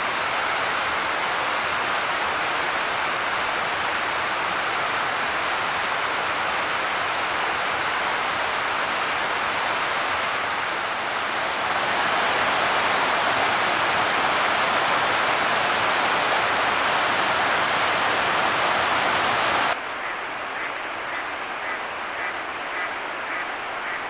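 Steady rush of water pouring over a low river weir, a little louder from about halfway. Near the end it cuts off suddenly, leaving a quieter, softer background rush.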